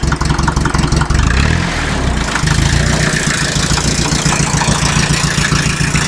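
Fiat 352C crawler tractor engine idling. Its note wavers between about one and two and a half seconds in, then runs on as an even idle.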